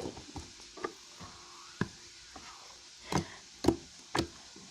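Homemade slime of glue and shaving foam being squeezed and worked in the hands, giving off about five sharp clicks and pops, the loudest ones close together near the end.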